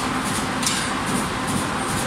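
Carton box making machine with multi-colour printing units, running at working speed: a steady mechanical hum and rumble with a light high clatter repeating two or three times a second, and one sharper click about two-thirds of a second in.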